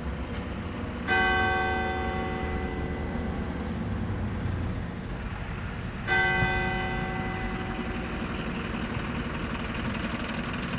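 A single church bell of the Basilica of Our Lady of Good Help tolling slowly after a funeral: two strokes about five seconds apart, each ringing on and fading between strokes.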